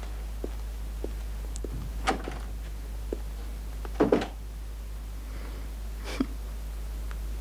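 A few scattered soft knocks and thuds, the loudest a double knock about four seconds in, over a steady low hum.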